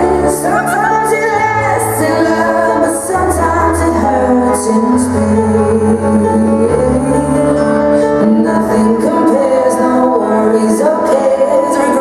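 Recorded pop song played over loudspeakers: a voice singing a melody over a stepping bass line and a steady beat.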